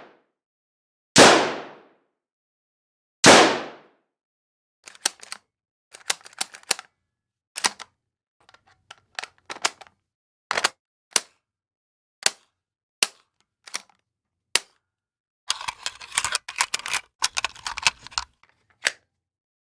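Two gunshots about two seconds apart, each with a short fading tail. Then a run of quieter, sharp metallic clicks and clacks follows, some single and some in quick clusters, with a denser flurry near the end.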